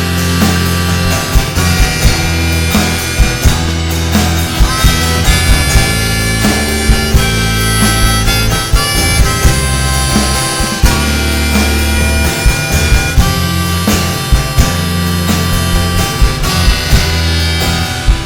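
Live rock band playing an instrumental passage: a harmonica lead with held, wailing notes over electric guitars, bass and a steady drum beat.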